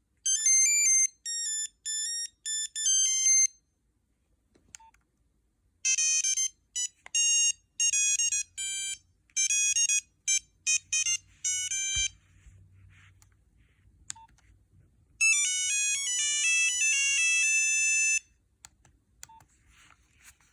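Nokia 6340i cell phone playing ringtone previews: three short beeping melodies, one note at a time, with pauses and faint clicks between them.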